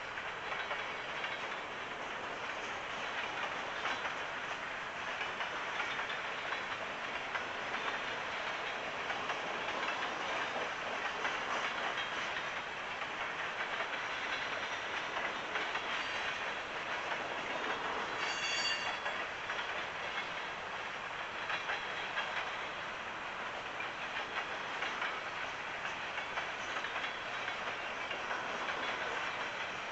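Freight train cars rolling past: steady rumble of steel wheels on rail with clacking over the rail joints. A brief high squeal about two-thirds of the way through.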